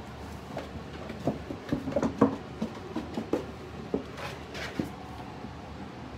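Irregular light knocks and scrapes of hard plastic as goldendoodle puppies clamber around and into a plastic paddling pool among plastic toys, with a cluster of louder knocks about two seconds in.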